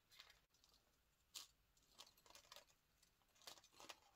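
Very faint handling sounds: a few small, scattered clicks and crackles of pliers gripping thin titanium leader wire as the tag end is wrapped back through the loop at a swivel, the clearest about a second and a half in and a cluster near the end.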